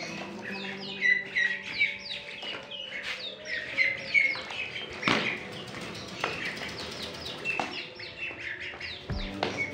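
A group of chicks peeping: a dense run of short, high, downward-sliding peeps, several a second.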